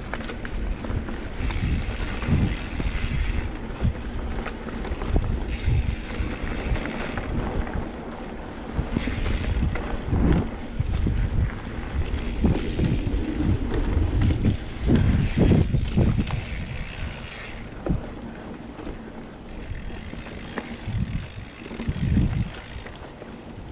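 Wind buffeting the microphone in uneven low rumbles, with patches of hiss every few seconds.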